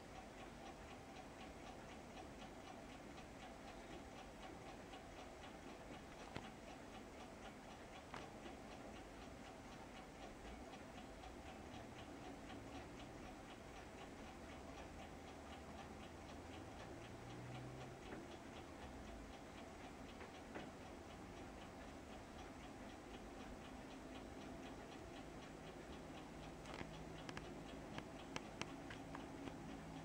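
Pileated woodpecker pecking at a suet cake in a wire cage feeder: faint, rapid tapping throughout, with a few sharper knocks, most of them near the end.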